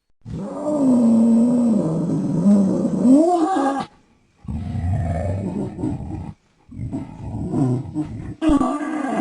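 Designed creature sound effects for Estemmenosuchus: about four roars and growls separated by short silences. The first and longest wavers in pitch and rises at its end; the later ones are lower and rumbling.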